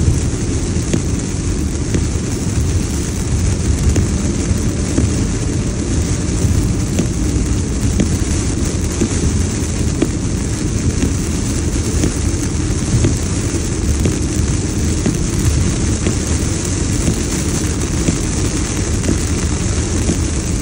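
Steady low rumble inside a car's cabin as it drives on a wet highway in heavy hurricane rain, with a hiss of rain and tyre spray over it.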